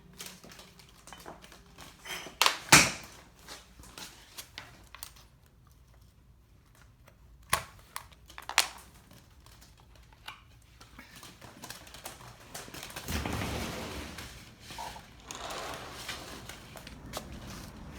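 Handling and movement noises: scattered clicks and knocks, the loudest a few seconds in, then a rushing noise over the last few seconds.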